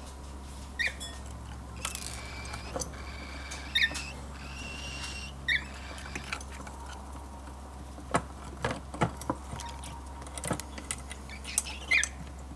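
Baby cockatiel fledgling giving short, high peeps every few seconds, with a run of light clicks and taps in the second half, over a steady low hum.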